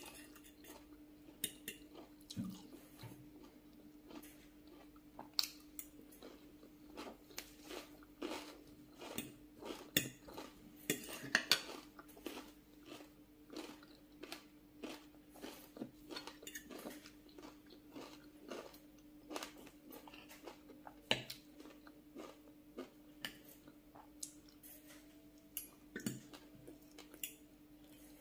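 Close-miked eating: chewing and mouth sounds, with frequent clicks and scrapes of a metal spoon and fork against glass plates of rice and salad.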